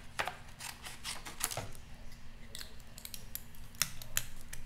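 Scissors snipping in a quick, irregular run of short cuts.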